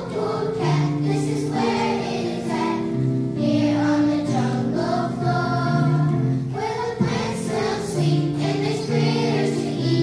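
Children's choir singing a song over backing music.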